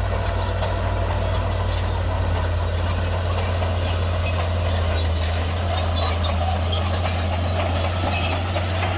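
Heavy diesel earthmoving machinery running steadily, a low drone with faint scattered ticks over it.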